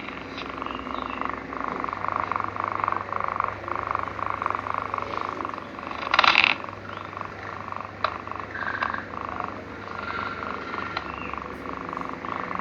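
Sleeping cat snoring and purring: a quick, even, rhythmic pulsing, with one brief louder noisy burst about six seconds in.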